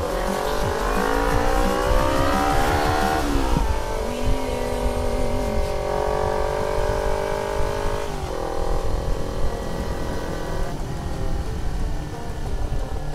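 Vehicle engine accelerating through the gears. Its pitch climbs for about three seconds, drops sharply at a shift, holds, and drops again at a second shift about eight seconds in.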